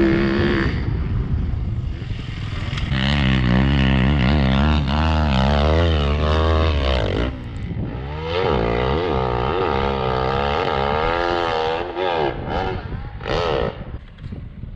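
Dirt bike engines revving, their pitch rising and falling with the throttle. Two long passes are heard, the second starting about 8 seconds in, with a short burst of revving near the end.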